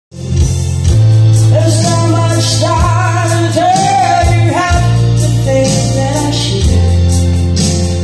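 Karaoke track of a soft-rock ballad played loud through a home stereo system, with a sung melody over heavy, held bass notes.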